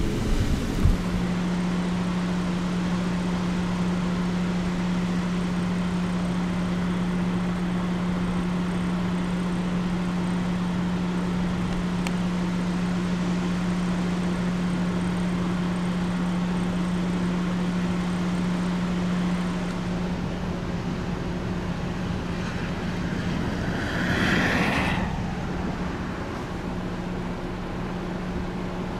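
Strong gusty wind rushing, with a steady low hum underneath. About 24 seconds in, a vehicle swooshes past.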